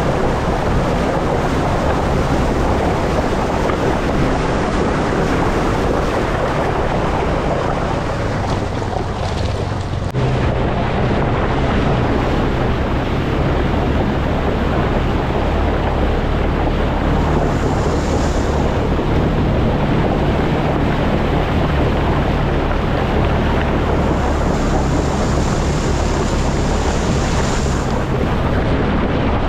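ATV engine running while riding, under heavy wind noise on the microphone. The engine note changes abruptly about ten seconds in.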